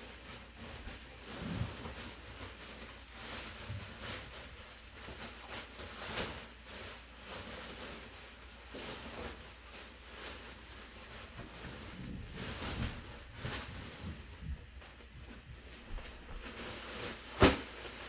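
Clear plastic wrapping crinkling and rustling, with cardboard scraping, as packed parts are pulled out of a large cardboard box: irregular light rustles throughout and one sharp knock near the end.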